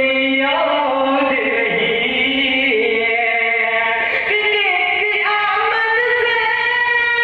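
A man singing a naat into a microphone, holding long notes that step and slide from one pitch to the next.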